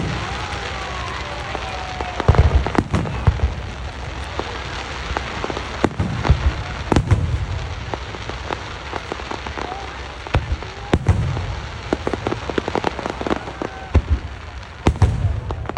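Fireworks finale: a constant crackling hiss of sparkling shells, broken by many sharp bangs and deep booms of bursting shells, in quick succession.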